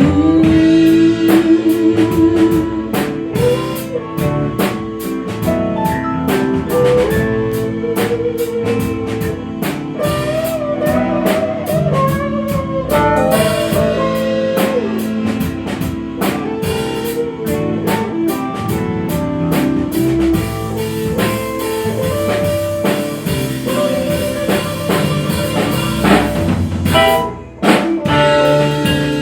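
Instrumental break of a pop-rock song, with no singing: a drum kit keeps a steady beat under guitar and a wavering lead melody.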